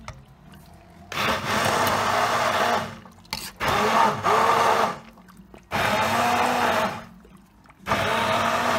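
Hand-held immersion blender puréeing tomato soup in a stainless steel pot, run in four bursts of one to two seconds each, its motor pitch wavering as the blades work through the vegetables.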